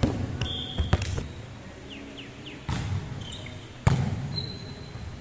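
Volleyball being hit, several sharp slaps echoing around a large sports hall, the loudest about four seconds in, with a few short sneaker squeaks on the court floor.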